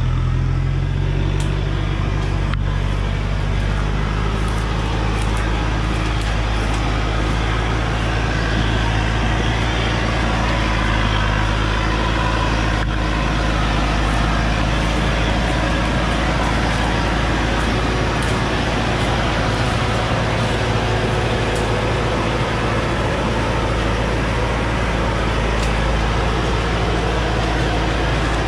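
Diesel engine of a heavily loaded Thaco Forland log truck running hard under load, rising briefly in pitch at the start and then holding a steady, loud drone as the truck tries to pull through soft sand with mud beneath.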